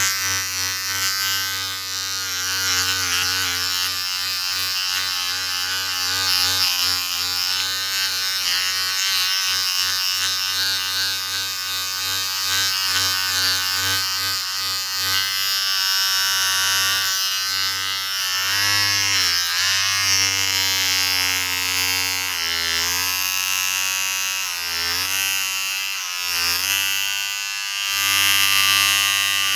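Electric shaver motor buzzing steadily. In the second half its pitch dips briefly several times before recovering.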